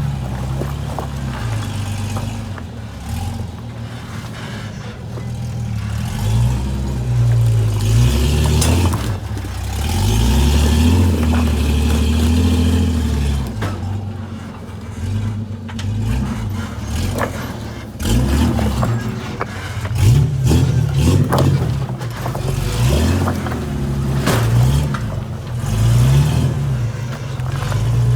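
Rock-crawling off-road rig's engine revving up and down in repeated bursts as it climbs a rock trail, with occasional sharp knocks.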